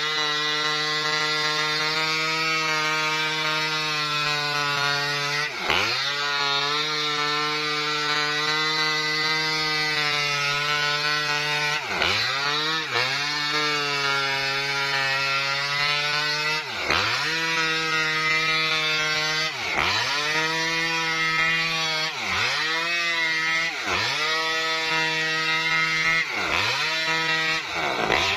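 Maestro mini chainsaw's two-stroke engine running under load, ripping lengthwise through a coconut palm trunk. The steady high engine note dips in pitch and recovers about ten times, more often toward the end, as the chain bites into the wood.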